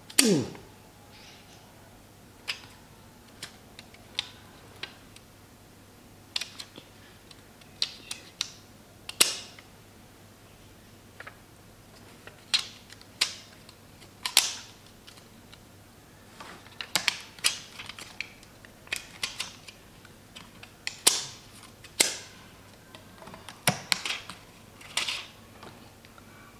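Irregular sharp clicks and light taps of small hard parts being handled on an opened laptop around its RAM slot, the loudest a knock right at the start.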